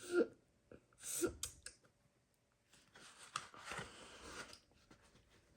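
Two short breathy voice sounds in the first second and a half, then paper rustling for about a second and a half as a page of a picture book is turned.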